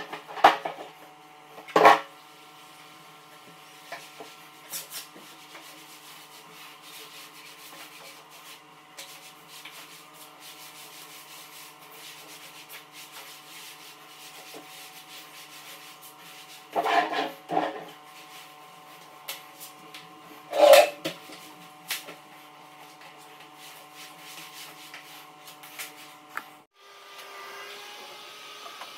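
Scrubbing and wiping around a toilet in a small tiled bathroom, a rough rubbing sound over a steady hum, broken by sharp knocks and clatters about 2 seconds in and again around 17 and 21 seconds. Near the end the sound cuts to something different.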